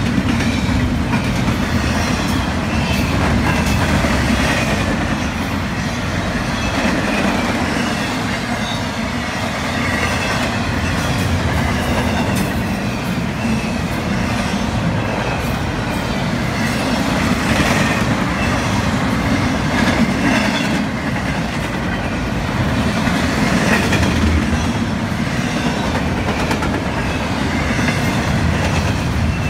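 Loaded double-stack intermodal well cars rolling past close by: a steady, loud noise of steel wheels running on the rails, with clacks of the wheels over the track.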